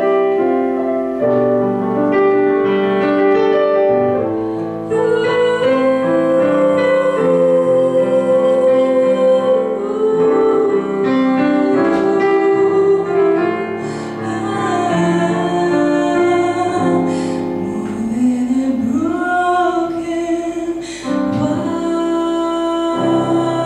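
A woman singing the final phrases of a ballad, accompanied on a digital piano. Her melody moves in held notes, with a slow upward slide into a long held note about three quarters of the way through.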